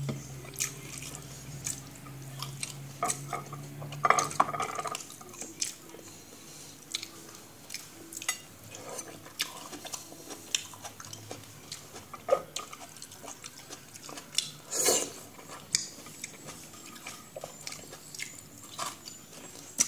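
Cutlery clinking and scraping against dishes in short, irregular clicks, with a sharper clatter about fifteen seconds in.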